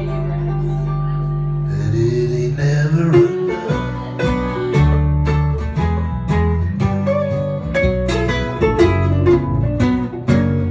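Several acoustic guitars strummed together with a man singing. A chord rings out for about the first two seconds, then steady rhythmic strumming takes over.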